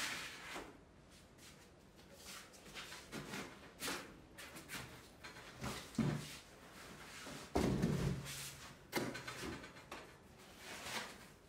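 Unpacking noise: cardboard and foam packing rustling and knocking as an aluminium rail assembly in foam end blocks is lifted out of its shipping box and laid on a table. There are scattered light knocks, and heavier thumps about six seconds in and again about a second and a half later.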